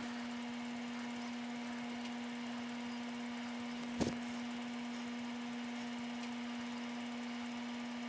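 Bravetti toaster oven running on bake: a steady low electrical hum with faint hiss, and a single sharp click about four seconds in.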